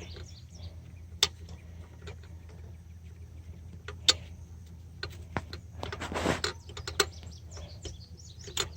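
Scattered metallic clicks and knocks of hand tools and loose engine parts as a part is worked off a 6.7 Powerstroke diesel engine during teardown, with a short scraping rasp about six seconds in, over a steady low hum.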